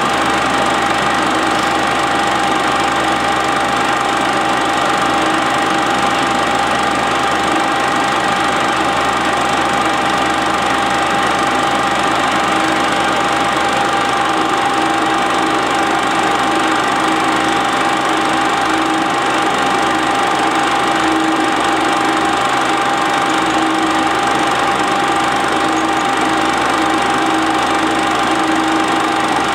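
Standard 8 cine projector running steadily: a constant mechanical whirr from its motor and film transport, with a steady hum tone over it.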